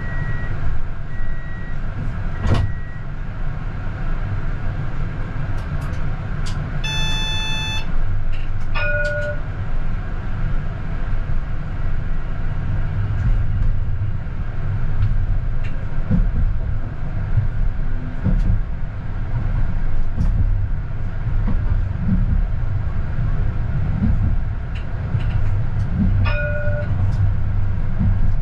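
CAF Urbos 100 tram running on its rails, heard from the cab: a steady low rumble from the motors and wheels throughout. A few short, evenly spaced beeps sound at the start. A clear one-second tone comes about seven seconds in, and two short dings follow, around nine seconds and again near the end.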